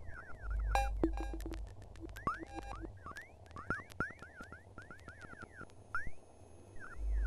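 Electronic music: a stream of short synthetic chirps that sweep up and down in pitch, scattered sharp clicks, and a deep bass tone that comes in about half a second in, fades out around three seconds, and returns near the end.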